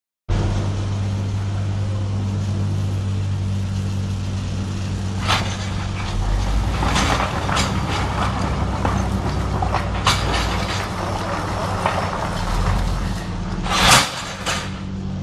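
Steady low mechanical hum with a deeper rumble through the middle, broken by a handful of short sharp knocks or clicks, the loudest near the end.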